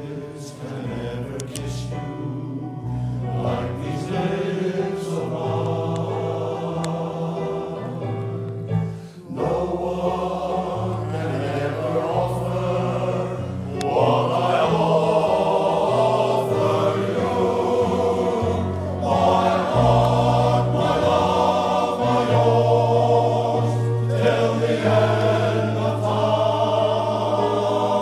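Male voice choir singing a song in full harmony, deep bass notes held under the tune. The singing breaks off briefly about nine seconds in and swells louder from about halfway through.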